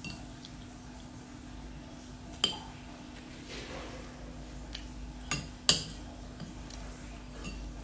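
A fork clinking and scraping against a plate while eating: a few sharp clinks, the loudest about five and a half seconds in, over a steady low hum.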